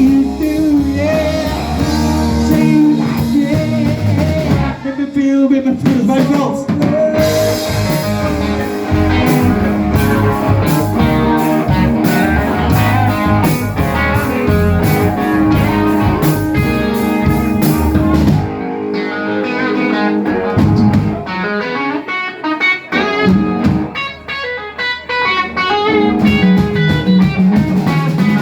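Live blues-rock band playing: guitar over a drum kit, with no vocal line in this stretch. About eighteen seconds in the full sound thins out to separate guitar phrases and drum hits, and the song stops at the very end.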